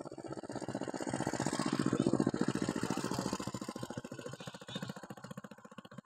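A small engine running with a fast, even pulse, growing louder to about two seconds in and then fading away, as if it passes by.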